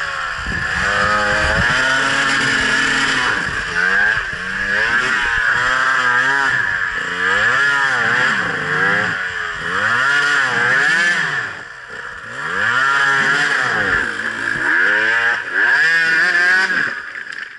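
Dirt bike engine revving up and down over and over, the pitch rising and falling about once a second as the rider works the throttle on a steep, rutted climb. The coach judges it too much throttle. The engine note falls away sharply near the end.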